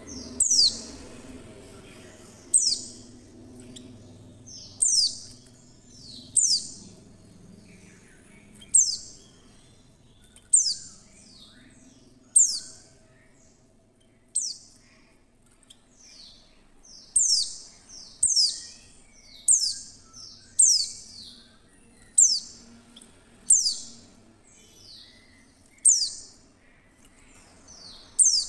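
Female white-eye (pleci) calling: short, high, downward-sweeping chirps repeated about every one to two seconds. This is the kind of call that keepers play as a lure to provoke a caged white-eye into opening its beak and singing.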